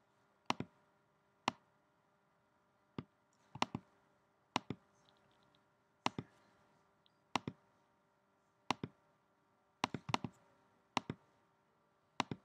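Computer mouse clicking: about a dozen sharp clicks at irregular intervals of a second or so, some coming as quick doubles, over a faint steady hum.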